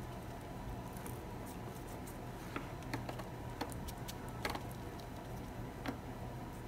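Light, scattered taps and clicks of a flat paintbrush dabbing acrylic paint on a palette and onto a clear plastic stamp, over a low steady hum.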